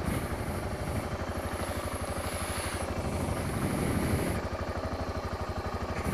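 Motorcycle engine running with a steady, even pulsing beat.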